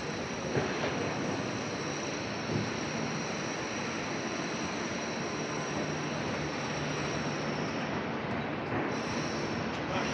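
Steady city street traffic noise, a continuous rush of passing vehicles, with a low engine hum coming in for a few seconds in the second half.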